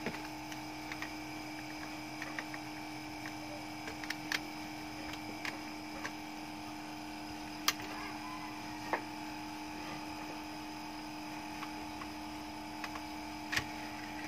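Steady electrical hum with a few sharp, scattered clicks from an opened DVD player's disc loader and tray mechanism as the tray slides out to take a disc.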